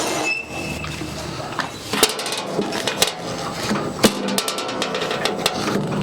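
Sharp metallic knocks and clicks from the band sawmill's parts being handled while the new blade is tensioned and checked for tracking: three single knocks about a second apart, then a quick rattle of small ticks.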